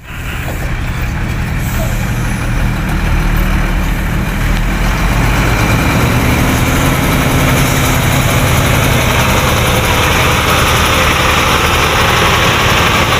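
Heavy diesel construction machinery running steadily, its low engine drone growing louder over the first few seconds and then holding even.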